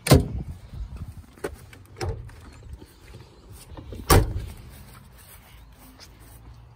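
Driver's door of a 1989 Volvo 240 clunking open at the start and shutting with a second loud clunk about four seconds in, with lighter knocks between as the hood release is reached for inside.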